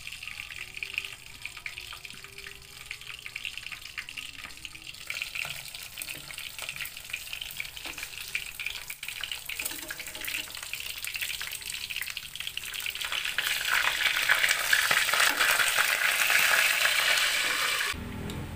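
Pork chops frying in hot oil in a pan: a dense, crackling sizzle that grows louder over the last few seconds, then stops abruptly near the end.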